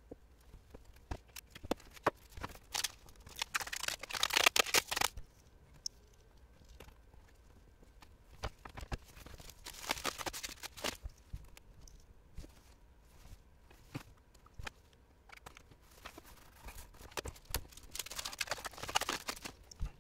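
Plastic being peeled and crinkled in three rustling, tearing stretches of one to two seconds each, with small clicks and taps of plastic handling between them.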